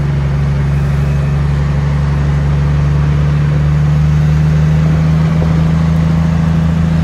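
Heavy truck's diesel engine running steadily under load on a climb, a constant deep drone heard from inside the cab, with road and wind noise over it.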